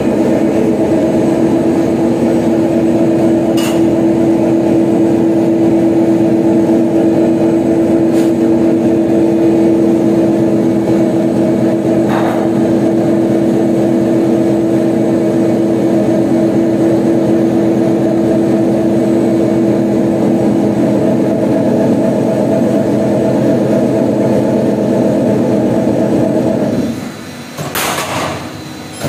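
Steel-profile roll-forming line running, a steady machine hum with one strong tone, and a few faint clicks. Near the end the line stops and the cut-off die shears the formed profile with a short, loud crash.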